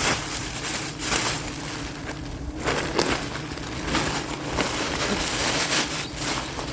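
Irregular rustling and crackling as a wild giant honeybee comb is cut and handled, over a faint steady hum.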